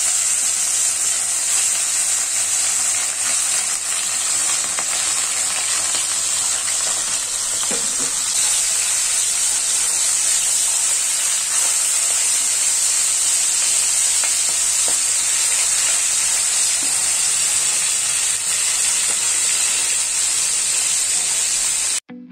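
Whole small fish rubbed with turmeric and salt frying in hot oil in a kadai: a steady sizzle that cuts off suddenly near the end.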